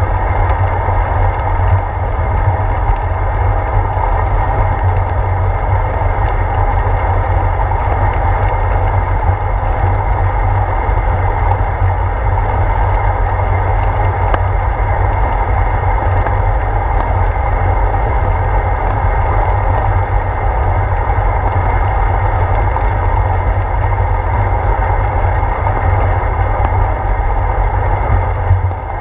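Bicycle riding over wet pavement, heard through a handlebar-mounted GoPro Hero 4: a steady low rumble of wind and road vibration with an even hiss of tyres on the wet road.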